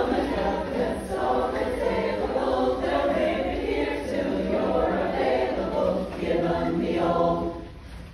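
Women's chorus singing together, sustaining a phrase that ends shortly before the close.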